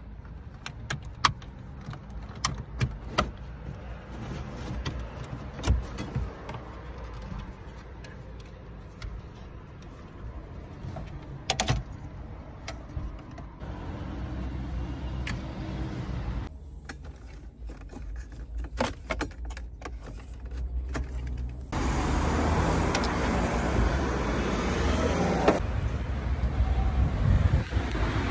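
Hands-on car radio removal and wiring work: scattered clicks, knocks and rattles from the metal radio removal keys, the radio unit and its wiring plugs, over a low background rumble. Near the end a louder, steadier noise sets in.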